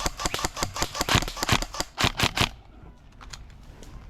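Airsoft guns firing in a rapid, irregular volley of sharp snapping shots that stops about two and a half seconds in.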